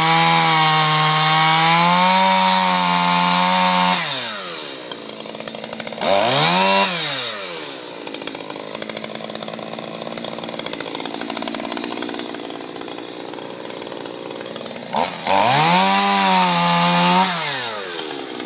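Gas chainsaw held at full throttle for about four seconds, then dropping to idle. It is blipped once, idles, and revs up again for about two seconds near the end before falling back to idle.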